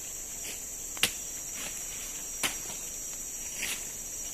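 Sharp chopping strikes of a blade cutting small saplings, two strong ones about a second and two and a half seconds in with fainter ones between, over a steady high-pitched drone of forest insects.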